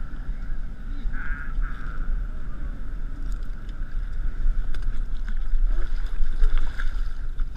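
Wind buffeting the camera microphone on a drifting boat, a heavy steady rumble, with choppy water slapping the hull. A short high sound stands out about a second in.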